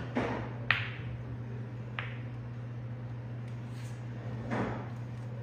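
Sinuca balls clicking on the table: a sharp click under a second in, another about two seconds in, and softer knocks at the start and near the end, over a steady low hum.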